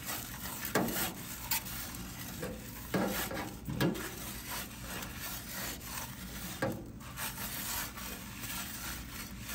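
Metal pizza turning peel scraping and knocking against the stone of a wood-pellet pizza oven as the pizza is rotated: several separate scrapes over a steady hiss.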